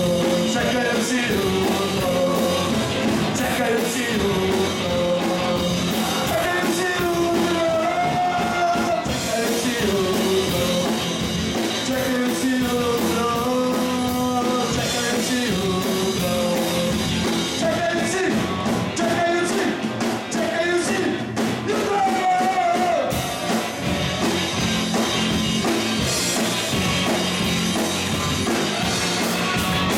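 A rock band playing live, with a singer over drums and guitars.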